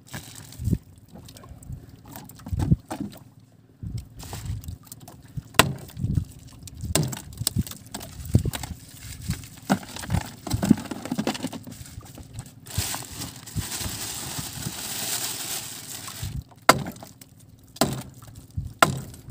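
Handling noise as fish are taken from a plastic bag and put into a plastic cooler box: irregular knocks, clatters and plastic rustling, with a steady hiss for about four seconds past the middle.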